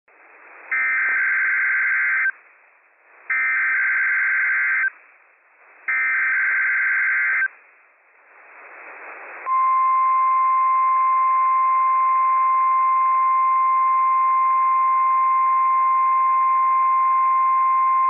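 NOAA Weather Radio Required Weekly Test alert signal: three identical buzzy bursts of SAME header data, each about a second and a half long, with radio hiss between them. About nine and a half seconds in, the steady 1050 Hz warning alarm tone starts and holds.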